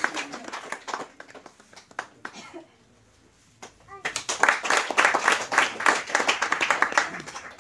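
A small group clapping, the applause dying away about a second in; a second round of clapping starts about four seconds in and fades out near the end.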